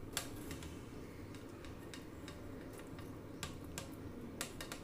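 Plastic spatula clicking and tapping against a metal tray while grainy kalakand mixture is pressed flat in it: one sharp click just after the start and several more near the end, over a faint steady hum.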